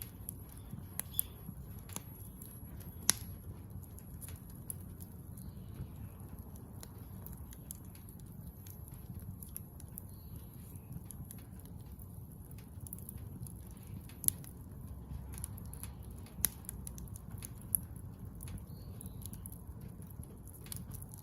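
Wood fire of scrap building timber crackling, with irregular sharp pops over a steady low rumble.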